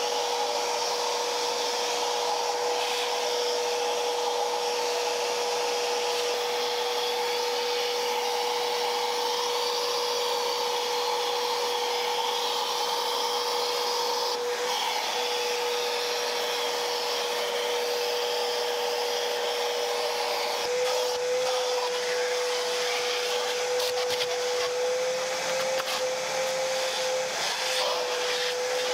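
Kärcher vacuum cleaner running steadily with a constant motor whine. In the last third its pitch rises a little and wavers, with a few light knocks.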